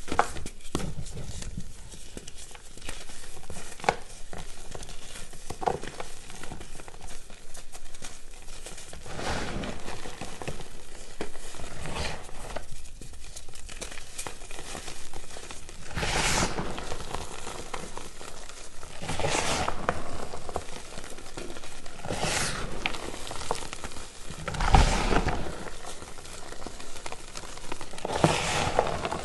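Reformed gym chalk discs being crushed and crumbled by hand: a steady dry crackle of small snaps, with several louder crunches every few seconds in the second half.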